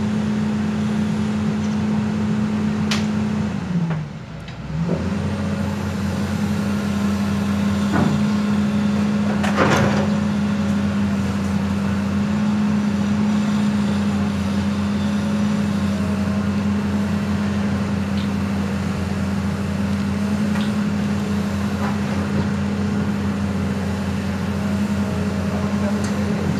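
Hitachi Zaxis 200 crawler excavator's diesel engine running steadily under hydraulic load as the bucket strips soil. The engine note dips briefly about four seconds in, then picks up again. A few sharp knocks occur in the first ten seconds.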